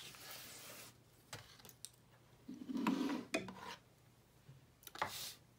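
Scissors cutting through paper, then paper scraps and sheets rubbed and slid about on a wooden desk, loudest about three seconds in.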